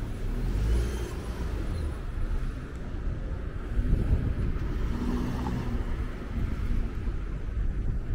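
Street traffic at a city crossing: a car drives slowly past, over a steady low rumble of engines and tyres.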